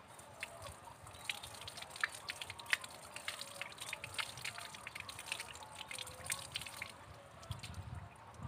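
Thin stream of well water running from a hose and splashing onto wet stones and ground, a quick irregular patter of drips and spatters.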